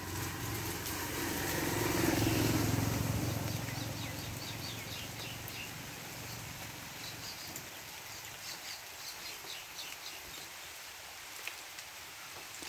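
An engine passes by, swelling to its loudest about two seconds in and then fading. Steady light rain hisses throughout, with small birds chirping over it.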